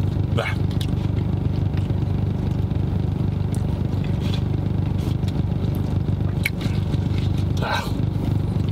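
Steady low hum of a running car heard from inside the cabin, with a few brief clicks, most likely from eating, in the second half.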